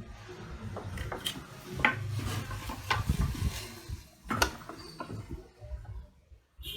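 Wooden boards being handled and set in place: scattered knocks and scraping of wood against wood and a work surface, with a few louder taps about two and four seconds in. The circular saw is not running.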